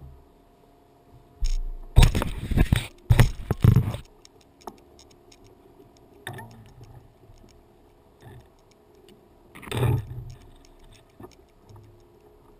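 Rattling and clinking of small hard objects, in a loud stretch about two to four seconds in and shorter bursts about six and ten seconds in.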